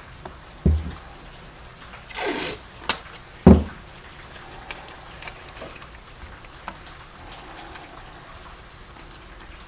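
Hand handling on a cardboard-covered workbench: two dull thumps of things set down on the table about three seconds apart, with a short scraping rustle and a sharp click between them, then scattered light taps and clicks.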